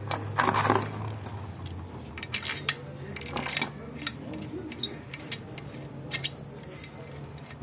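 Steel bolts and engine parts clinking and knocking against the crankshaft and block of a Damas engine as it is assembled by hand, in irregular clinks, loudest about half a second in.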